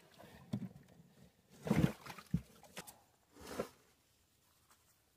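A man grunting and breathing hard with effort as he climbs out of a deep post hole, a few short grunts with the loudest about two seconds in.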